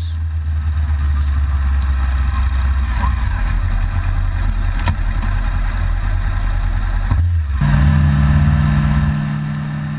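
Motorcycle engine running under way at road speed, with a rushing haze over its low rumble. About seven seconds in the sound drops out briefly and a steadier, higher engine note takes over.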